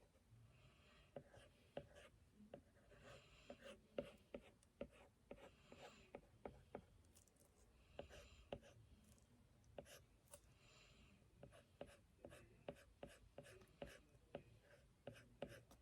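Faint drawing sounds: short scratchy strokes of a drawing tool on its surface, mixed with many light taps and clicks.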